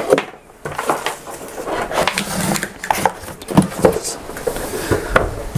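Keyboard packaging and accessories being handled: a run of irregular knocks, taps and rustles of cardboard and plastic.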